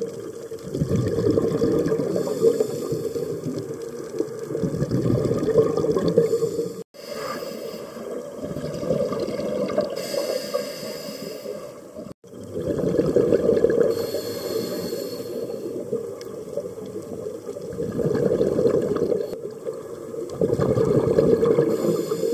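Scuba diver breathing through a regulator underwater: long swells of low rumbling exhaust bubbles, with short hissing inhalations in between. The sound cuts out sharply twice, at about 7 and 12 seconds in.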